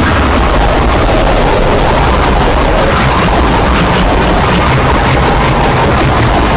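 Very loud, heavily distorted noise that never lets up, with a fast rough flicker and no recognisable voice or tune.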